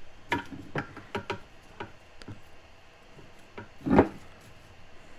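Light clicks and taps of fingers and small metal parts against the cast-iron case of a Volvo M40 gearbox, several in the first two and a half seconds, then one louder knock about four seconds in.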